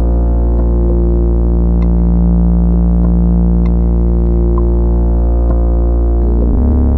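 Ambient music from eurorack modular synthesizers: a deep, sustained bass drone under layered steady pad tones, with a few faint high pings scattered through it. The low notes shift near the end.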